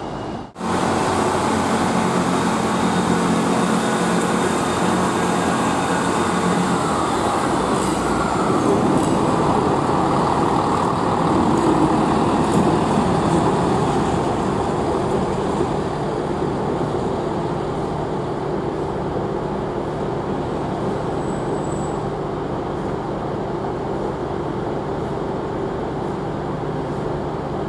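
Northern Class 158 diesel multiple unit's underfloor diesel engines running under power as it pulls away. The sound grows louder as it draws near and passes, then slowly fades as it runs away, with light clicks from its wheels crossing the points.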